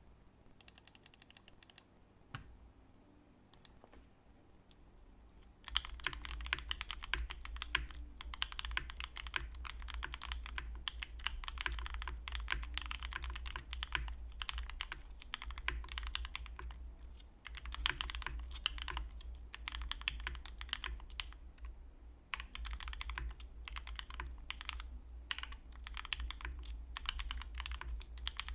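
Typing on a Heavy Metal Keyboard TKL with stock Gateron Oil King linear switches, a foamed steel plate and GMK keycaps: a dense stream of keystroke clacks. A few scattered key clicks come first, then steady, fast typing starts about five or six seconds in and runs with brief pauses.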